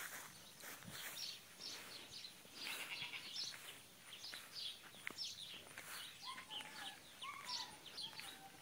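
Several birds chirping, with quick short chirps throughout and a few brief whistled notes in the second half.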